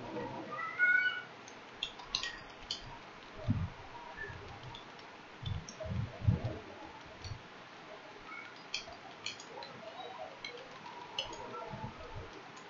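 Faint computer-keyboard typing in scattered clicks, with a few low thumps. A short high gliding animal call is heard near the start.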